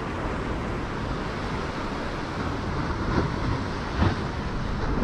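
Wind buffeting the microphone over the steady wash of surf breaking at the foot of a sea cliff, with two brief knocks about three and four seconds in.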